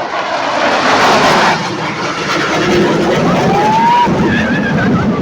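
Fighter jet flying over with a loud, broad roar that is strongest about a second in, then stays steady. A short rising whistle sounds near the end.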